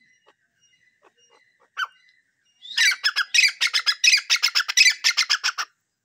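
Grey francolin calling: one short call about two seconds in, then a fast, loud run of repeated high calls, about seven a second, for some three seconds.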